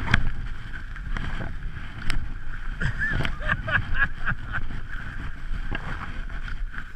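Skis sliding over packed snow: a steady low rumble with scraping and a few sharp clicks.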